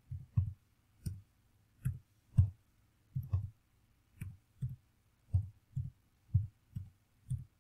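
Computer keyboard keystrokes and clicks, about fourteen separate taps at an uneven pace of roughly two a second, as numbers are typed into a spreadsheet-like table.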